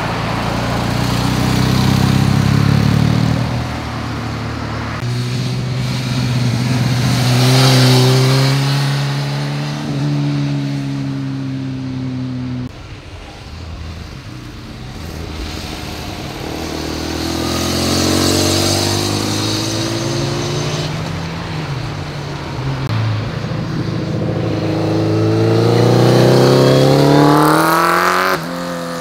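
Motorcycle engines passing one after another through a tight bend, each easing off into the curve and then revving up, rising in pitch, as it accelerates away. The sound changes abruptly twice where one pass is cut to the next.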